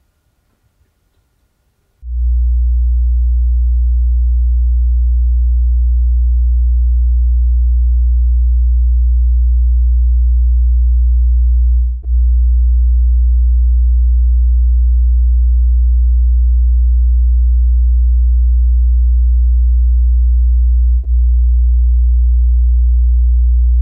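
Near silence, then about two seconds in a loud, steady, deep bass drone sets in: a pure low tone used as an ominous sound effect for the haunting. It cuts out briefly twice, with a faint click, about halfway through and near the end.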